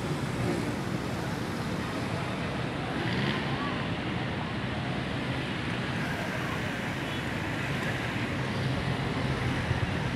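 Steady road traffic noise: vehicles running along a street in a continuous low hum and hiss.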